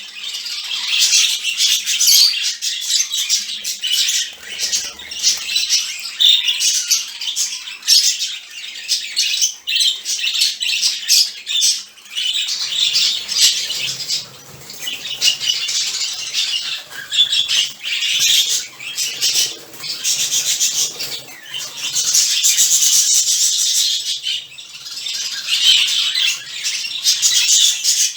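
A flock of budgerigars chattering, chirping and squawking all at once in a dense, unbroken noise: their morning wake-up racket.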